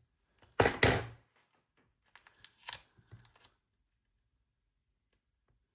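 Paper and scissors handled at close range: a short loud rustle of paper about half a second in, then a few light clicks and snips a second or two later.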